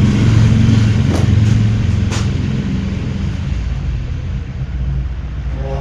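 Low, steady engine-like rumble that starts suddenly just before and slowly fades, with a couple of light clicks about one and two seconds in.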